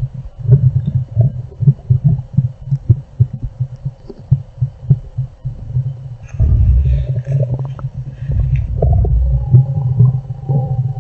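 Stomach growling and gurgling, loud and close: quick irregular low bubbling pops, a longer sustained rumble about halfway through, then a drawn-out squeaky, wavering gurgle near the end.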